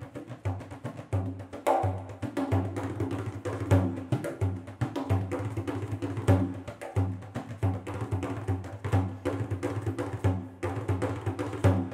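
Large frame drum played solo with the fingers of both hands: a fast, unbroken stream of finger strokes and slaps on the skin head, with deep bass tones coming back again and again.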